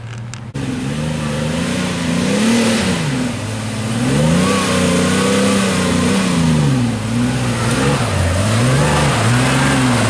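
Isuzu Trooper's engine revving up and down under load as the 4x4 climbs a rough, rutted dirt trail. Its pitch rises and falls several times.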